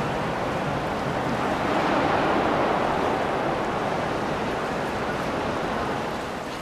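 Rushing, churning water of a boat's wake on the river, swelling about two seconds in and then easing off.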